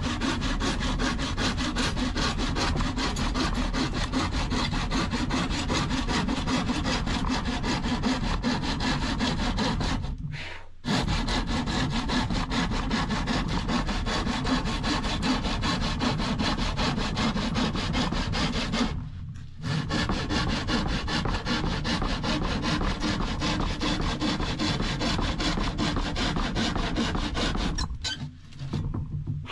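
Manual handsaw cutting through a sheet of oriented strand board (OSB) with a steady run of back-and-forth strokes. It pauses briefly twice and stops near the end.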